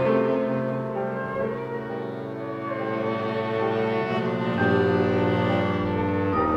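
Live chamber ensemble playing held chords, with bowed strings to the fore. A fuller chord with a new low note comes in about two-thirds of the way through.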